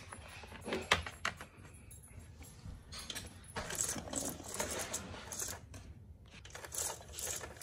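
Light clicks, taps and scrapes of hard plastic: a Littlest Pet Shop figure being handled and pushed into a plastic tree playset. A few clicks come about a second in, a busier patch of clicking and rustle follows from about three and a half to five and a half seconds, and a few more come near the end.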